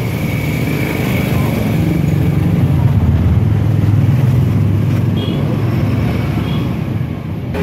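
A motor vehicle engine running steadily with a low drone that grows slightly louder through the middle, with a faint brief high squeak a little after halfway.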